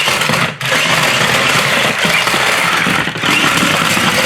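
Toy remote-control stunt car's small electric motor and wheels whirring loudly in bursts, with three brief letups as the throttle is released and pressed again.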